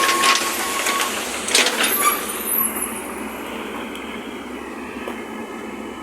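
Heavy construction machinery running, a steady mechanical noise with two short, harsh bursts in the first two seconds before it settles.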